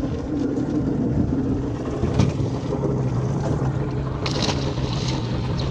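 Boat engine running steadily at trolling speed, a continuous low hum with some wind noise on the microphone. A short knock comes about two seconds in.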